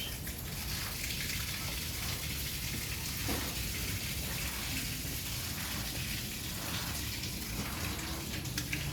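Steady water noise: an even hiss of running or falling water.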